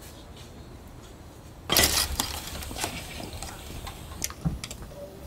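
A sudden clatter about two seconds in, followed by a few light clinks.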